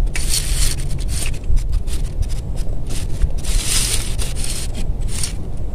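Wind buffeting the microphone as a steady low rumble, with a few short bursts of rustling and scraping on top.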